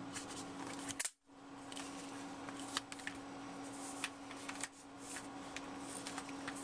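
Light clicks, ticks and rustles of packaging being handled and opened by hand, over a steady low hum. The sound cuts out completely for a moment about a second in.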